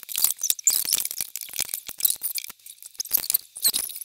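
Hands arranging a rubber-band figure on a loom: a quick, uneven run of small clicks, ticks and rustles.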